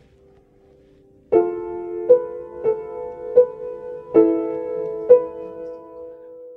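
Upright piano played slowly. A chord is struck about a second in, then five more notes or chords follow at unhurried intervals, each left ringing.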